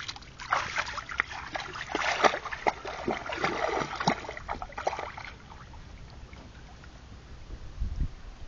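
A Labrador wading into a shallow lake, its legs splashing through the water in quick, irregular splashes for about five seconds before the splashing dies down. A low bump near the end.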